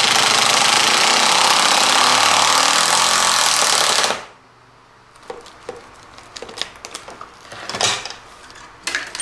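Power ratchet running steadily for about four seconds, unscrewing the bolt that holds a wiring-harness plug in a truck's bulkhead connector, then stopping suddenly. After it, quiet clicks and rustles of the plastic harness and loom being handled and unclipped.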